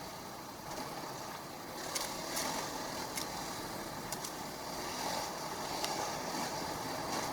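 KTM 500 EXC single-cylinder four-stroke enduro bike running along a trail, its engine mostly buried under a steady rushing noise, with a few sharp ticks scattered through.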